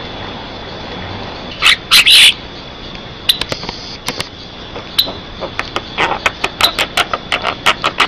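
Javan myna (jalak kebo) singing in full voice: two loud, harsh, squawky calls about two seconds in, then a quick run of short, sharp chattering and clicking notes.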